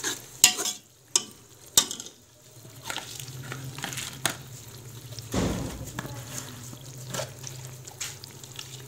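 Sliced onions and ginger-garlic paste sizzling softly in oil in an aluminium pressure cooker, with a steel ladle stirring and clinking against the pot a few times in the first two seconds. A low steady hum comes in about a second in, and there is one dull thump about halfway through.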